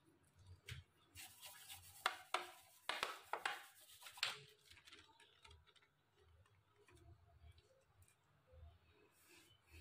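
Margarine being rubbed over the inside of an aluminium baking tin: quick scratchy scrubbing strokes with a few sharp knocks against the metal, most of it between about one and four seconds in, then faint handling.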